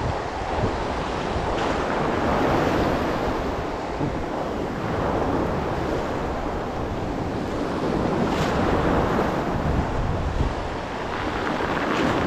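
Choppy sea waves washing and sloshing at close range, with wind buffeting the microphone.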